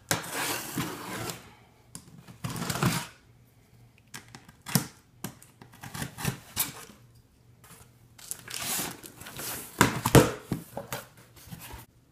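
Box-cutter knife slitting the packing tape along the seam of a cardboard box in several scratchy strokes with scattered clicks, then the cardboard flaps being pulled open near the end.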